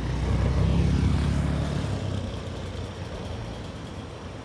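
Motorcycle engine running at low speed. Its low hum swells about a second in, then fades steadily.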